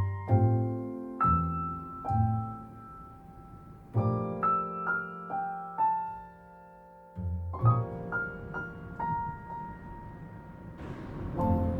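Background music: a piano playing a gentle melody over soft chords. Near the end a steady rushing noise comes in under the piano.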